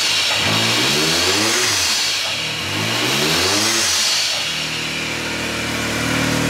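Can-Am Maverick X3's turbocharged three-cylinder engine being revved up and back down twice, then settling to a steady idle about two-thirds of the way in. The engine has overheated, and it is being run to listen for abnormal noise.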